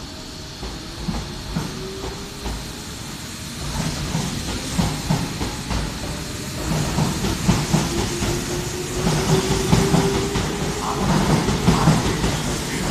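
Tobu 70000 series electric train accelerating away from a station: its traction motors whine, rising in pitch, while its wheels clack over rail joints faster and faster. The sound grows steadily louder as the cars pass.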